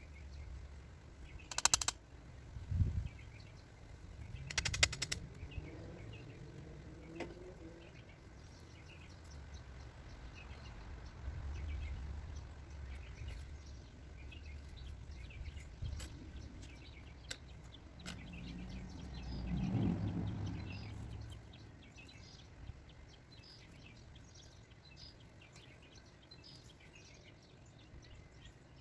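Small birds chirping, broken in the first few seconds by two loud rattles and a few thuds from a wire-mesh garden fence and its stakes being handled. A low rumble swells and fades about two-thirds of the way through.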